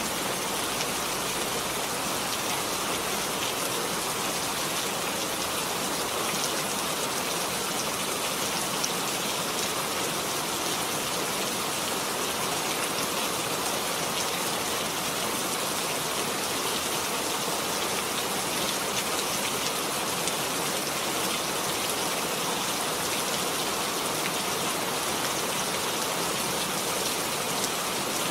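Steady rain falling on a surface, an even, dense patter of drops with no let-up.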